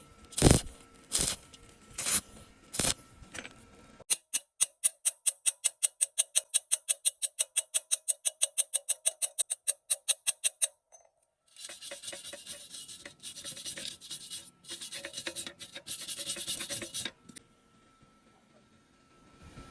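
Hand tools working on metal: sharp knocks about once a second, then a fast, even run of scraping strokes about four or five a second, then bursts of scrubbing that stop a few seconds before the end.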